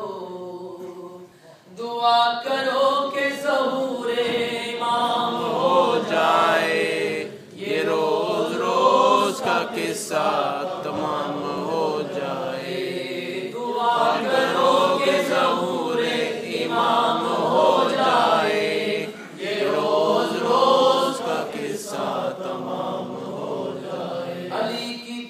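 Unaccompanied devotional recitation: a male reciter chanting a melodic poem in long sung phrases, with brief pauses about 1.5, 7.5 and 19 seconds in.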